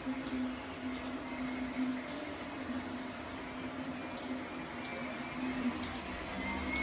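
Desktop 3D printers running mid-print. The stepper motors hum and whine, the tone swelling and shifting in pitch as the print head changes moves, over steady fan noise with a few faint ticks.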